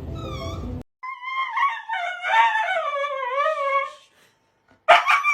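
Dog howling: a long wavering howl of about three seconds that slides up and down in pitch. It follows a short high whine from a separate clip, and another loud, high, held cry starts suddenly near the end.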